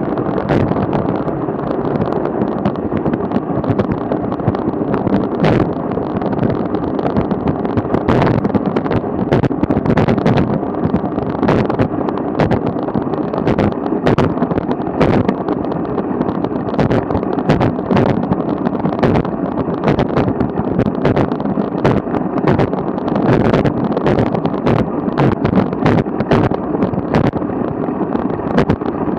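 Road bike riding fast over rough, cracked asphalt: wind rushing on the camera microphone and tyres rumbling, with frequent sharp knocks as the wheels hit the cracks that run across the path.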